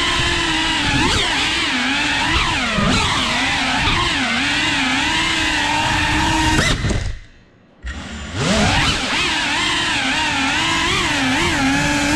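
FPV quadcopter's electric motors and propellers whining, the pitch wavering up and down with the throttle. About seven seconds in, the motors cut out for about a second, then spool back up with a rising whine.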